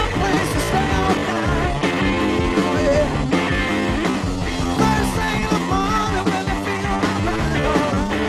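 Rock music with electric guitar over bass and drums, playing continuously.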